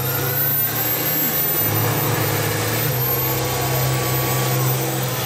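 Mega truck's engine running hard under load while pulling in a truck tug-of-war: a steady, deep drone.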